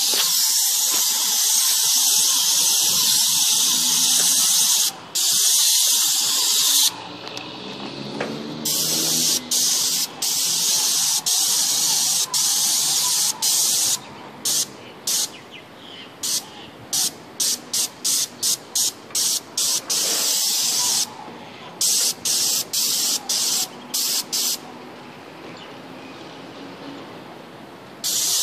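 Paint spray gun hissing as roof paint is sprayed onto tiles. The trigger is held in long spells at first, then pulled in many quick short bursts, each hiss starting and cutting off sharply. It pauses for a few seconds before starting again near the end.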